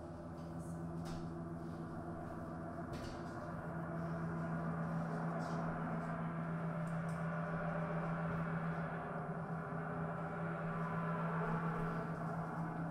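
Processed bowed-guitar drone: a steady low hum with a ring of overtones, swelling louder over the first few seconds and then holding.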